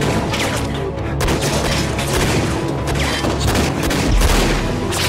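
Tense TV-drama score. Over it runs a dense, rapid crackle of sharp hits, and a low boom comes about four seconds in.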